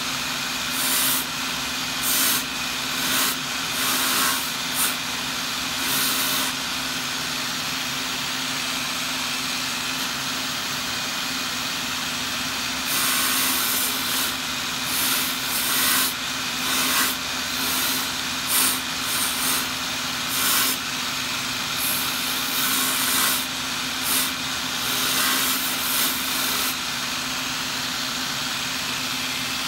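A power tool spinning a sanding disc runs with a steady hum while a small wooden piece is pressed against the disc in short touches, each giving a brief loud burst of sanding about once a second. There is a stretch of plain running without sanding in the middle.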